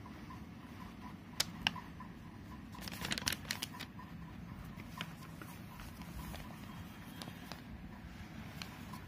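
Printed paper pages being handled: two sharp clicks about a second and a half in, then a short crackling rustle of the paper sheets about three seconds in, over a steady low hum.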